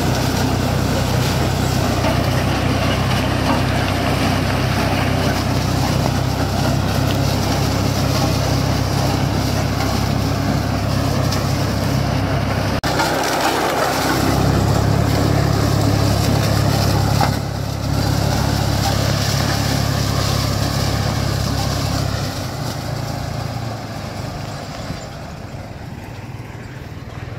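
IMT 542 tractor's diesel engine running steadily under load, driving a SIP Tornado 40 forage harvester that chops standing maize, a steady drone with a rushing chopping noise over it. The drone breaks off briefly about halfway, and over the last few seconds the sound fades as the machine moves away.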